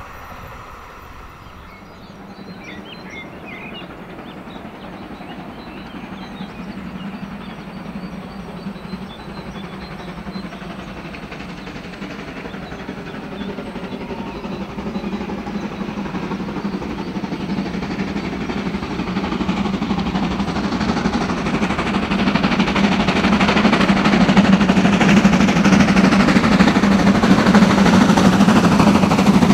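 Steam locomotive working a passenger train under steam as it approaches, its exhaust beats and running noise growing steadily louder as it nears.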